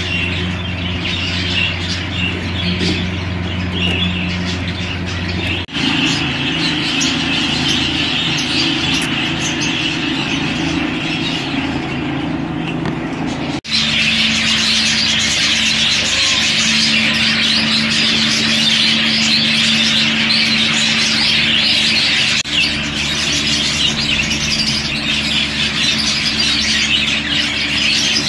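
Budgerigars chattering over a steady low hum; the mix changes abruptly three times, at about 6, 14 and 23 seconds in.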